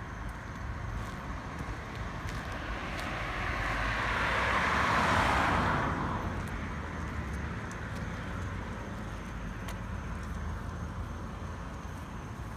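A car passing on the road: its tyre and engine noise swells to a peak about five seconds in, then fades, over a steady low traffic rumble.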